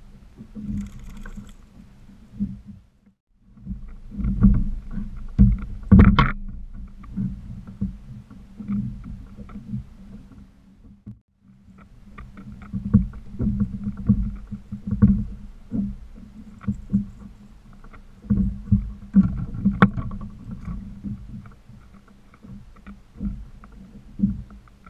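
Small waves slapping against a fishing kayak's hull, heard as irregular low thumps and knocks, with one sharper knock about six seconds in.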